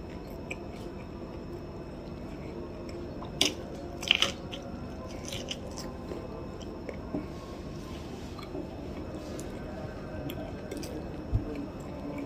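Close chewing of a mouthful of corn kernels bitten off the cob, wet and squishy, with a few sharp biting clicks about three and four seconds in.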